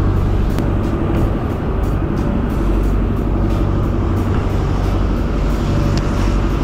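Yanmar Arashio boat's engine running steadily under way, heard from inside the cabin, with water rushing along the hull. Background music plays over it.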